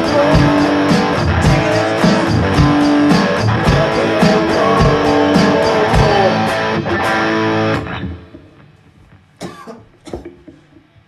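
Rock music with electric guitar, bass and a steady beat, played loud. It stops about eight seconds in and dies away, followed by two brief faint sounds.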